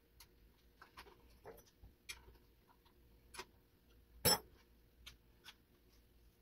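Irregular light clicks and taps of small parts and tools being handled while a cordless chainsaw is put back together, with one sharper, louder click a little after four seconds.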